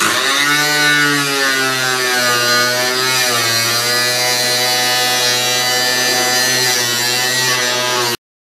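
Electric angle grinder cutting into the truck's rusted sheet-metal body, its motor whine sagging in pitch as the disc bites, twice. It stops abruptly shortly before the end.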